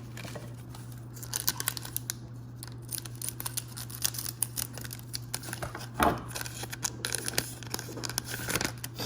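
A foil trading-card pack is torn open and crinkled by hand, with quick irregular rustles and snaps of paper and card and one louder snap about six seconds in.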